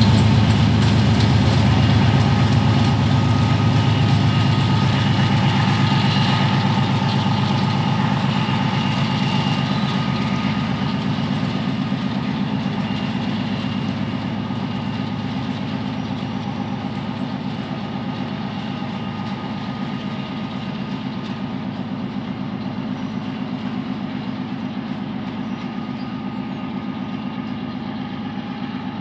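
A 2TE10V twin-section diesel locomotive's 10D100 two-stroke diesel engines running under load as it hauls a freight train away. The deep engine drone, with a steady higher whine above it, fades gradually.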